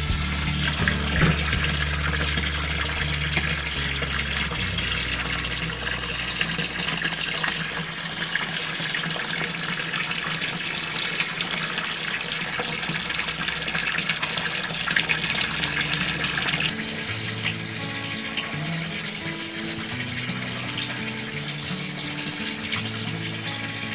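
Water splashing and running as dried shrimp and dried fish are rinsed by hand in a bowl, with background music throughout. The water noise eases about two-thirds of the way through.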